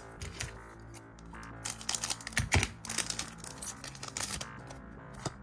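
A trading-card pack wrapper being torn open and crinkled, a run of crackling and rustling from about two seconds in to past four seconds, over background music.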